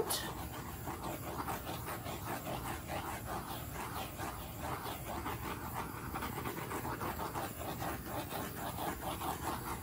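Handheld torch flame hissing as it is swept back and forth over wet acrylic pour paint to pop the air bubbles; the hiss swells and fades a couple of times a second as the flame moves.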